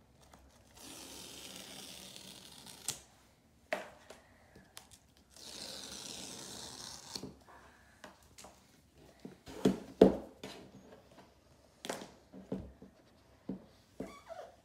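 Cardboard and paper packaging being torn open: two long tearing sounds of about two seconds each, then a string of light knocks and taps as the box is handled, the loudest about ten seconds in.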